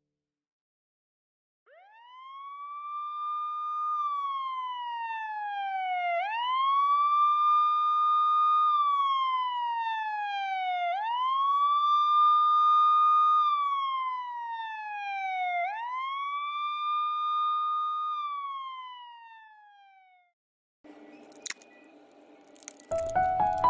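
Siren wailing, starting about two seconds in: each cycle rises quickly, holds, then falls slowly, four times over, about every five seconds, before stopping. Faint clicks and rustling follow near the end.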